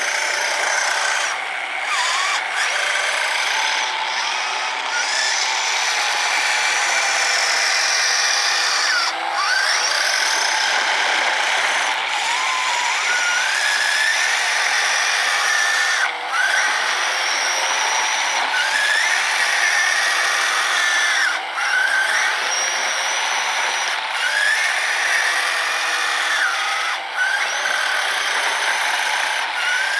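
Electric motors of a 3D-printed RC snowblower and its RC trail truck running: a steady high whine whose pitch rises and falls every few seconds, with a few brief dips.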